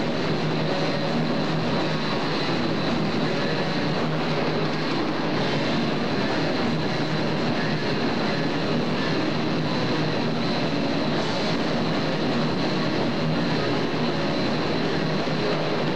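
Rock band playing live and loud, with distorted electric guitar, heard as a dense, unbroken wall of sound on a camcorder's microphone.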